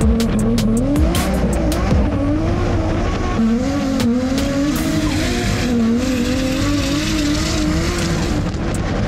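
Drift car engine held high in the revs, its pitch wavering up and down as the throttle is worked, with tyre squeal building in the middle.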